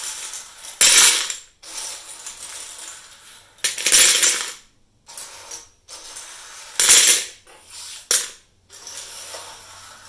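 Loose plastic keycaps from a Monterey K101 keyboard clattering against each other and the wooden tabletop as a hand sweeps and scoops them together, in several separate bursts of rattling.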